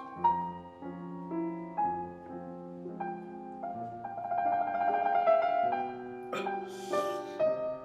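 Piano music with single notes and chords stepping along, and a short hiss-like swell about six and a half seconds in.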